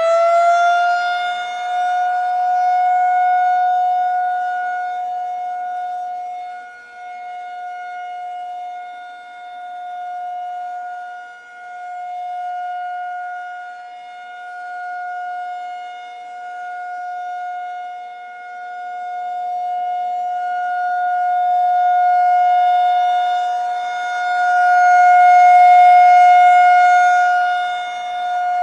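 Outdoor civil-defense warning siren sounding for a severe thunderstorm warning. It holds one steady wailing pitch after winding up, and swells and fades in loudness every few seconds.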